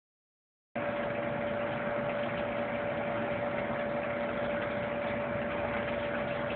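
Steady mechanical hum, a constant tone over an even hiss, starting abruptly under a second in.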